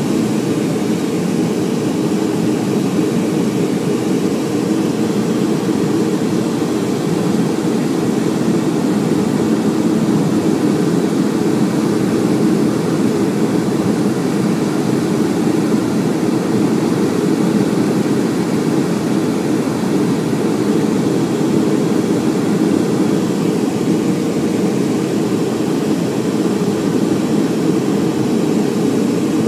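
Steady cabin noise of a Boeing 757-200 heard from a window seat over the wing during final approach: the engines and the airflow make an even low rumble that holds level throughout.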